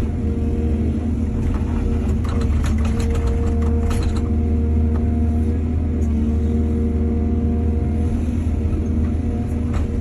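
Heavy diesel engine of an excavator running steadily with a deep rumble, with a short run of rattling, clattering knocks about two to four seconds in.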